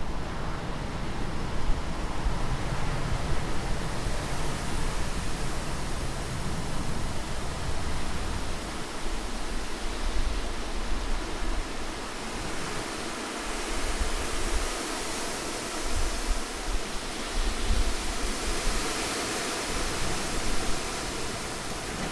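Strong wind blowing as a steady rush that swells and eases in gusts, with a low rumble that comes and goes.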